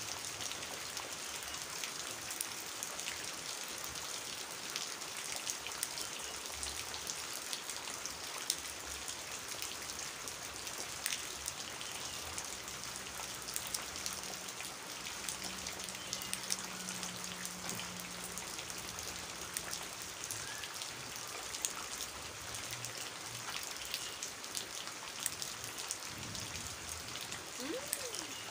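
Steady rain falling on a muddy puddle, with many individual drops splashing into the standing water.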